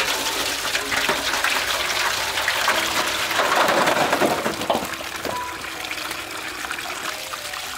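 Water running and splashing, starting abruptly and loudest around the middle, with light mallet-percussion background music underneath.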